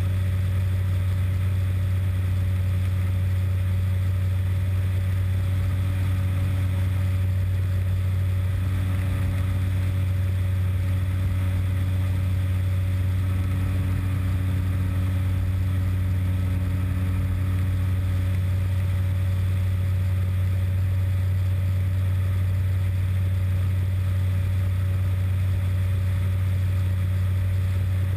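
Aero Adventure Aventura II light aircraft's engine running steadily at cruise, a constant low hum with a wash of airflow noise, unchanging throughout.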